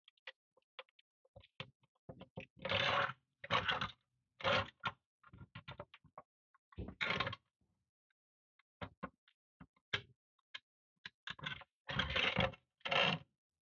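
A pointed metal tool scraping caked dirt out of the interior of a rusty Tonka toy van, in about six short, harsh strokes with small clicks and taps between them.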